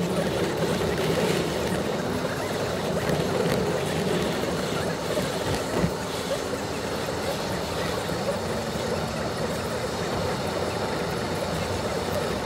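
Car engine and road noise heard from inside the cabin while driving: a steady rumble with a low engine hum that drifts slowly in pitch, and one short knock about six seconds in.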